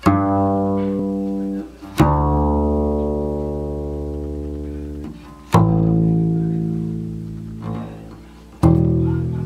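1971 Frederick Lyman solid carved upright bass (double bass) played pizzicato: four low plucked notes, each left to ring and slowly die away before the next.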